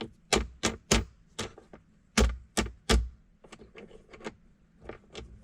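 Sharp clicks and knocks from mount hardware being handled as a device-holder arm and its clamp are worked onto a dash-mounted rail: about seven loud clicks in the first three seconds, then lighter ticking.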